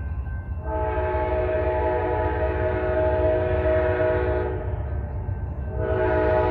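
Amtrak passenger train's air horn sounding a chord, approaching: one long blast of about four seconds, then a second long blast starting near the end, over a steady low rumble.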